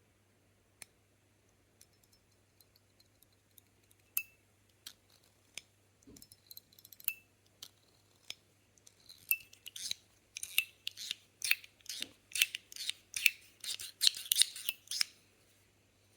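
A Metilis fidget toy worked by hand: a few scattered light clicks at first, then from about nine seconds a quick run of sharp clicks and clacks, three or four a second, that stops about a second before the end.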